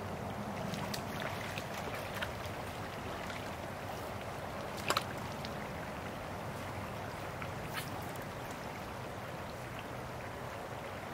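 Steady rush of a shallow creek's flowing water, with a few brief sharp clicks. The loudest click comes about five seconds in.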